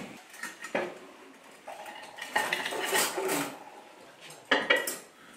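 Metal cutlery and crockery clinking and rattling in short bursts, loudest about three seconds in and again near the end, as a fork is fetched from among the kitchenware.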